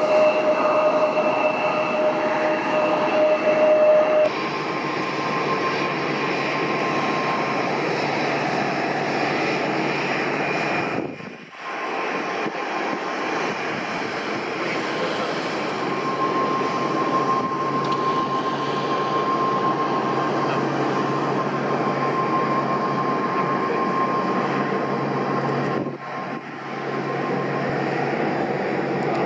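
A CRJ-700 regional jet's twin rear-mounted GE CF34-8C turbofans running at takeoff power as it rolls down the runway and lifts off: a steady jet rush with a thin whine, whose pitch steps up about four seconds in. The sound dips briefly twice.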